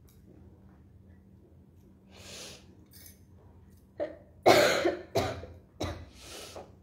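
A woman coughs four times in quick succession, starting about four seconds in, the second cough the loudest, with breathing before and after.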